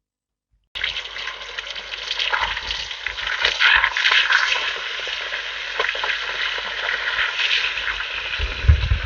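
Food sizzling and crackling in hot oil in a pan, starting abruptly about a second in, with a low bump near the end.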